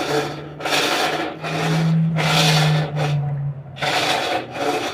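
Colormaq top-loading washing machine agitating, with a loud harsh scraping on each agitator stroke, about one a second, over the steady hum of the motor. This is the unbearable noise that appears only at water level 4, which the repairer puts down to the shaft and agitator sitting slightly lower and rubbing.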